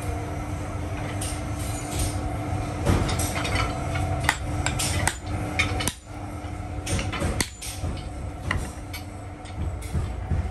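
Hammer blows driving a wooden handle into a steel hammer head on an anvil, seating the head: a series of sharp knocks at irregular intervals. A steady hum runs underneath.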